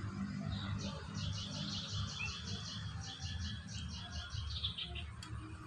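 A bird calling in a fast, even series of high chirps, about five a second, which fades out near the end, over a low background rumble.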